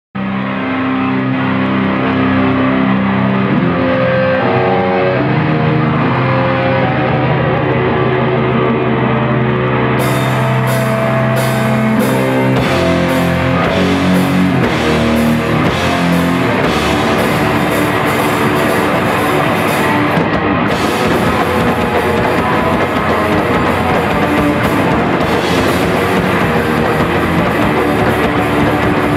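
Live hardcore punk band playing: guitars hold sustained notes on their own for about ten seconds, then the drum kit comes in with crashing cymbals and the full band plays on.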